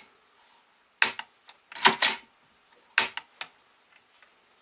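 Smith & Wesson M&P 15-22 rifle's action worked by hand to cycle dummy rounds through in a function test: a series of sharp metallic clacks as the bolt is pulled back and snaps forward, about one cycle a second, some clacks in quick pairs.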